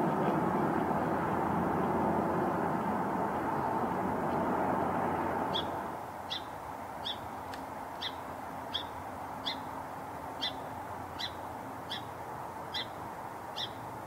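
A steady rushing background noise drops away about six seconds in. A sparrow then gives a short, sharp chip call about eleven times, roughly every three quarters of a second.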